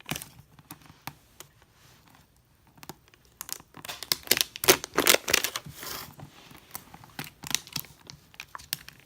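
L.O.L. Surprise toy packaging being pulled and torn open: a few light clicks and rustles, then a run of ripping and crinkling from about three and a half seconds in, with more scattered tearing after it.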